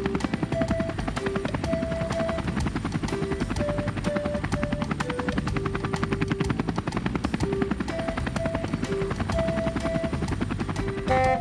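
Helicopter rotor sound, a fast steady chopping, over a simple background music melody.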